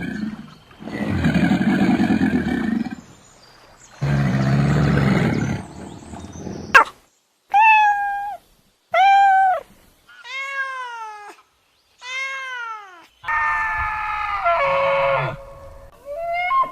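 A sequence of animal sound-effect clips: two low growling calls, then four cat meows, each rising and falling in pitch, then a harsher pitched animal call near the end.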